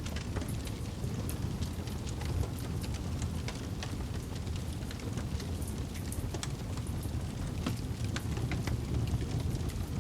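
Wood campfire burning: a steady low rumble of flames with frequent small, irregular crackles and pops from the burning wood.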